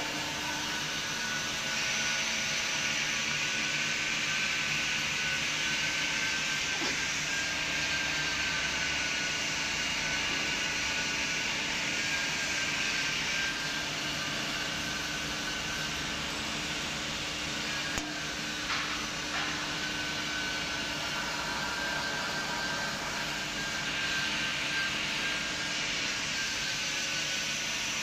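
XY-OQ-7000K double-deck automatic serviette tissue folding machine running: a steady mechanical whirr with a high whine that wavers slightly and a low hum, and two faint knocks.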